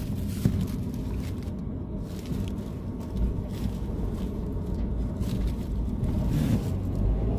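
A car driving, heard from inside the cabin: a steady low rumble of engine and road noise, with a single knock about half a second in.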